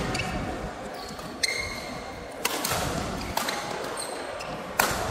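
Badminton rally: rackets striking the shuttlecock four times, about a second apart, with brief squeaks of shoes on the court mat between the hits.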